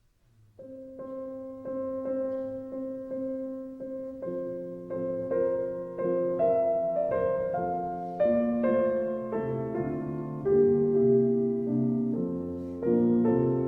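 Solo piano music starting about half a second in: a calm repeated figure of notes that grows louder and fuller into chords.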